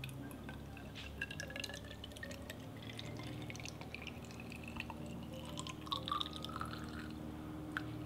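Distilled water poured from a jug into a tall clear acrylic tube, splashing with many small drips and a faint tone that rises in pitch as the tube fills.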